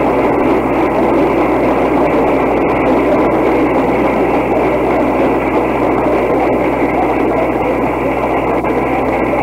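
Steady hiss and low hum of an old tape recording, with no speech and no other event.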